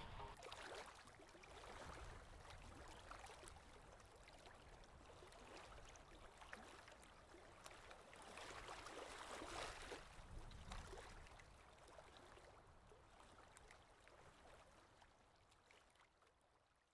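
Near silence: a faint outdoor background hiss that fades out near the end.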